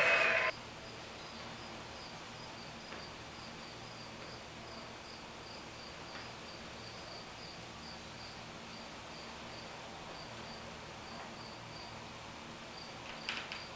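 A loud sound with several steady tones cuts off suddenly about half a second in, leaving a cricket chirping steadily, about three short chirps a second at one high pitch, over a quiet hiss. A few faint clicks come near the end.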